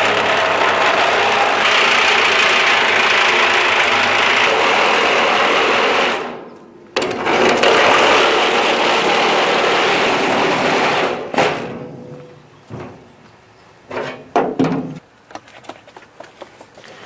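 Cordless power cutting tool cutting through the sheet-steel wall of a drum, a loud steady buzzing cut. It stops about six seconds in, starts again a second later and runs to about eleven seconds, then gives way to a few quieter knocks and clanks of metal being handled.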